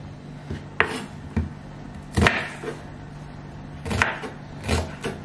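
Kitchen knife chopping an onion on a wooden chopping board: a few sharp, irregularly spaced knocks of the blade on the board.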